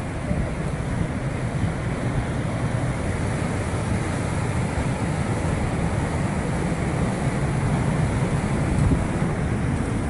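Steady rush of a white-water river churning through a canyon below, with wind buffeting the microphone.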